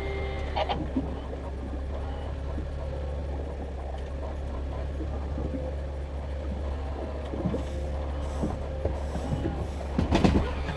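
A boat's engine running with a steady low drone, with scattered knocks and clatter of gear being handled aboard and a sharper burst of knocks near the end.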